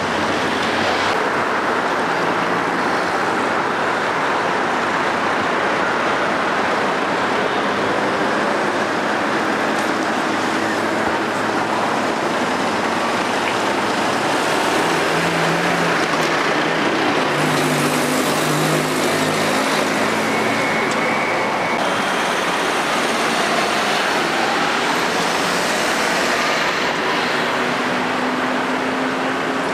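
Steady city traffic at a busy junction: cars, vans and minibuses passing, with a trolleybus going by close about halfway through.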